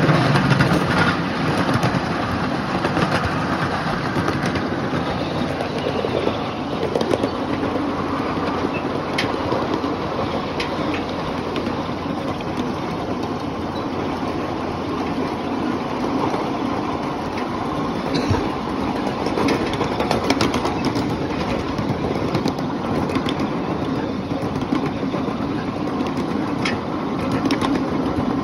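Ride-on miniature train running along its track: a steady rumble of the wheels on the rails, with scattered short clicks and rattles from the cars.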